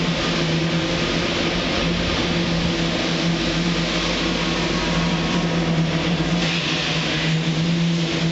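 Steady construction-machinery noise with a constant low hum, inside a concrete railway tunnel under construction.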